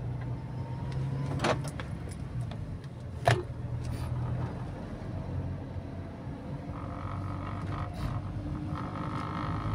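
Steady low hum of a car's engine and road noise heard from inside the cabin while driving, with two sharp clicks about one and a half and three seconds in.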